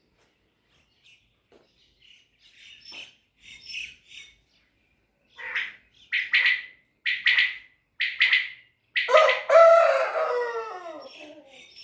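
Caged quail calling: a run of short, sharp notes about one a second, then a longer, louder call that falls in pitch, like a rooster's crow.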